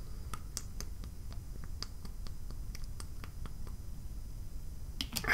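Drinking water from a plastic bottle in long swallows: a run of soft gulping clicks, about four a second, which stops after about three and a half seconds, then a couple of sharper clicks near the end.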